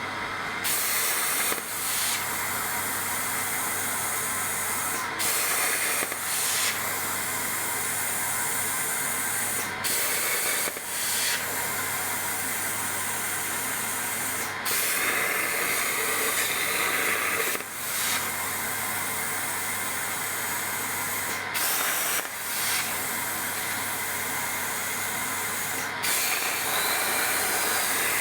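CNC plasma cutter torch hissing steadily as it cuts 3 mm mild steel. The hiss breaks off for a moment about every four to six seconds.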